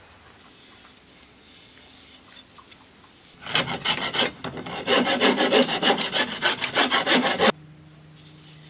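Hand rasp scraping the wood of a bamboo-and-maple composite bow in quick back-and-forth strokes, several a second. The strokes start about three and a half seconds in and cut off suddenly near the end.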